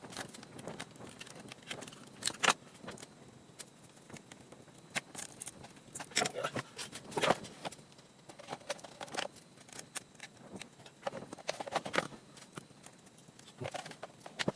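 Irregular clicks, clinks and rattles of plastic and metal parts as a laptop's screen assembly is pried and pulled apart by hand.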